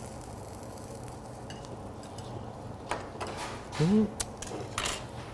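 Metal skewers clinking and clicking against the tabletop skewer grill, a few sharp clinks over the second half. About four seconds in comes the loudest sound, a short hummed "mm" from the eater.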